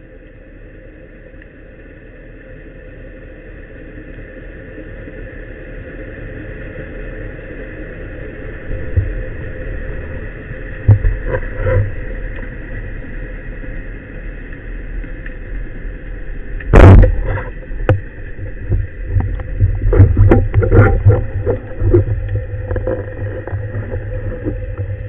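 Underwater recording: a steady hiss that slowly grows louder, then scattered sharp knocks and clicks, with one loud bang about seventeen seconds in followed by a rapid cluster of knocks.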